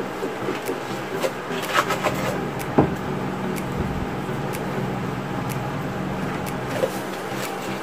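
Small trowel scraping and tapping on wet cement mortar spread over a plastic sheet: scattered soft clicks and scrapes, with one sharper knock about three seconds in. A steady low hum runs underneath.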